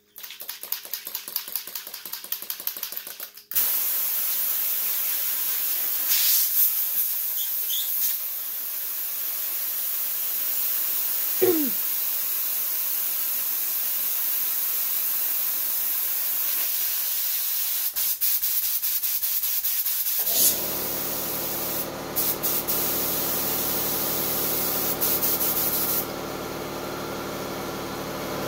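Airbrush blowing air and rinse water through its nozzle while being cleaned. It spits in short rapid spurts for the first few seconds, then settles into a steady hiss. From about 20 seconds in, a low motor hum, which fits the airbrush compressor running, joins under the hiss.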